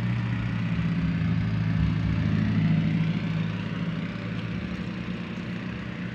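An engine running steadily with a low hum, swelling a little partway through and easing slightly near the end.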